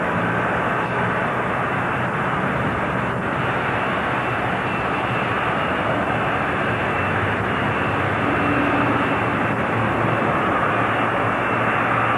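Jet airliner engines running steadily at taxi power: a continuous rushing noise with a faint steady whine, swelling slightly in the second half.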